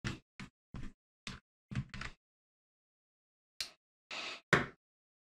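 A series of short knocks and clatters, like hard objects being handled and set down on a workbench. The loudest is a single sharp knock about four and a half seconds in, just after a short scrape.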